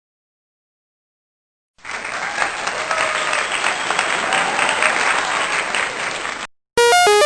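Silence, then about two seconds in a crowd applauding, an even clatter of many hand claps that cuts off abruptly after about four and a half seconds. Near the end a short electronic melody begins.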